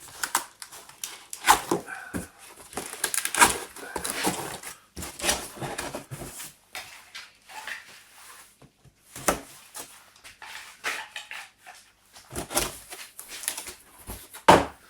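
A cardboard box and its packaging being opened and handled: irregular rustling, scraping and knocks.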